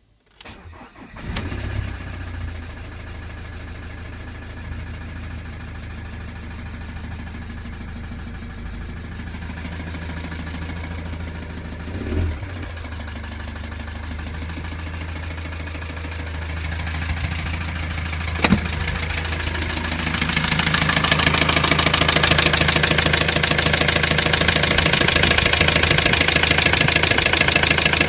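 A 2007 Ford Transit's 2.2 TDCi four-cylinder diesel engine cranks briefly and catches, then idles with a fast, even knock. Its cause is a broken piston and rings in cylinder 4. A sharp click comes about two-thirds of the way through, and after it the engine is heard closer and louder for the rest.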